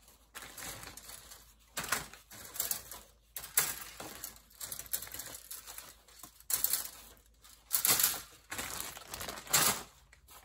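Hard plastic model-kit sprues being handled and laid down on a cutting mat: irregular light clattering and scraping of the plastic frames against each other, with some crinkling of their clear plastic bags.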